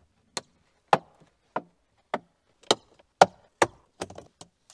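Plastic retaining clips of a car dashboard speaker grille snapping loose as the panel is pried up with a plastic trim tool: a run of about ten sharp clicks, roughly every half second and quicker near the end.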